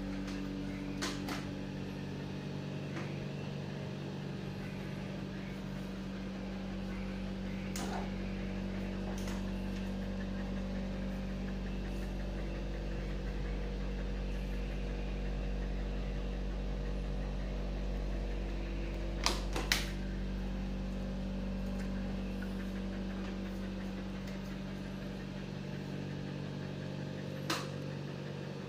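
Steady electric motor hum from a children's battery-powered ride-on toy motorcycle running, with a few sharp clicks, two of them close together a little past the middle.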